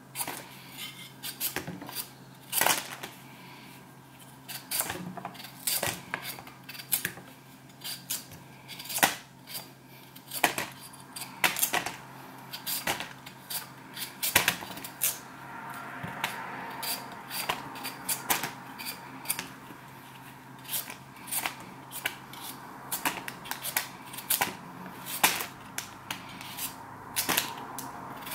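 Kitchen food preparation: a knife and utensils click and knock irregularly, a sharp tap every second or so, while sweet potatoes and plantain are prepared for porridge. A faint steady hum runs underneath.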